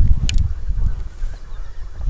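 Wind buffeting the microphone, a loud irregular low rumble, with a brief high-pitched chirp or click about a third of a second in.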